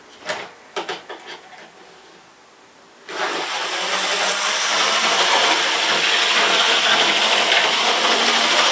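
Small OO gauge model locomotive set down on the track with a few clicks. About three seconds in its electric motor starts and runs steadily, a loud whir with wheel noise on the rails.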